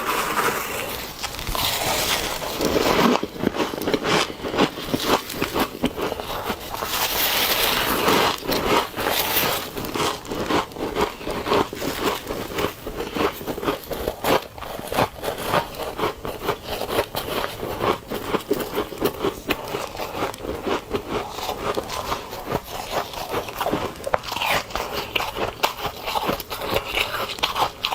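Ice being bitten and chewed: a dense run of sharp crunches and cracks, several a second.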